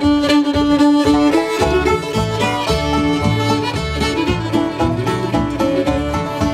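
Acoustic string band playing a tune's instrumental introduction. A fiddle holds one long note, then about a second and a half in the upright bass, guitar and the other strings come in with a steady bluegrass rhythm.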